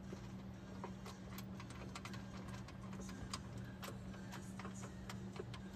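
Faint irregular clicks and ticks of metal and plastic parts being handled as a bolt is threaded in by hand, over a steady low hum.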